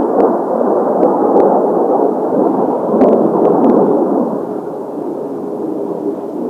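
Kawasaki T-4 jet trainers of the Blue Impulse formation, their turbofan engines a steady roar with a few sharp crackles, fading away from about four seconds in.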